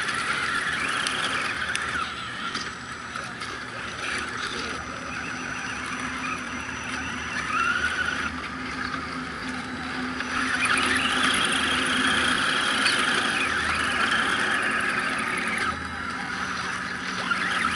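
High-pitched whine of radio-controlled scale crawler trucks' electric motors and geartrains, rising and falling with the throttle as they climb, louder for several seconds in the second half.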